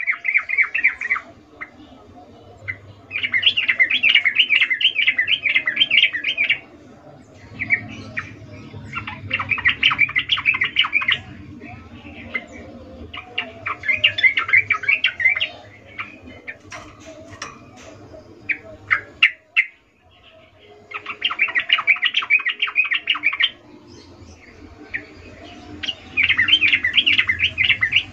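Yellow-vented bulbul singing: loud bursts of rapid, bubbly chattering phrases, each two to three seconds long, repeated about every four to five seconds with pauses between. A few sharp single notes come around the middle.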